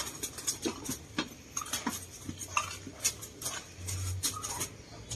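Irregular clicks, knocks and scuffles from handling a Muscovy duck as it is carried into a concrete pen and put down.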